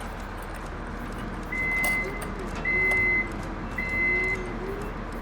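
Vehicle reversing alarm giving three steady beeps, each about half a second long and about a second apart, over a steady engine-like rumble with a wavering lower tone.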